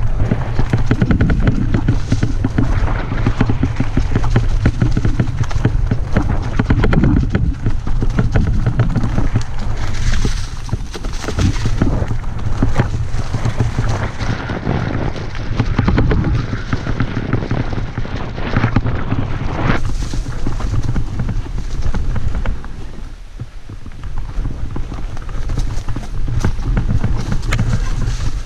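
Mountain bike ridden down a rough trail, heard from a camera mounted on the rider: wind buffeting the microphone with tyres rolling over rocky ground and the bike rattling, with many small knocks throughout.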